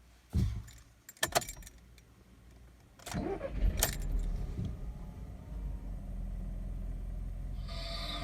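Volkswagen Polo 6R being started: a knock and a few sharp clicks, then the engine cranks and catches about three seconds in with a brief rev. It settles into a steady idle with a light rattle, the 'katakata' noise the owner hears only at idle after start-up. Music comes in near the end.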